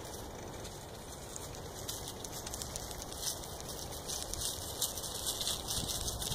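Bicycle tyres rolling over a grassy trail strewn with dry leaves: a steady rustling noise with a dense patter of small crackles.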